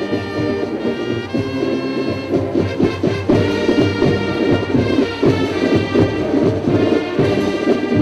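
Drum and bugle corps playing: the bugle horn line holds brass chords that change every second or two over a run of drum strokes.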